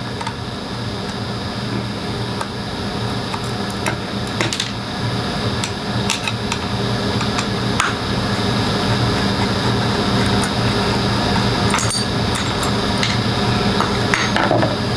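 Small metal clicks and taps as A5 detachable clipper blades are taken apart by hand, over a steady machine hum.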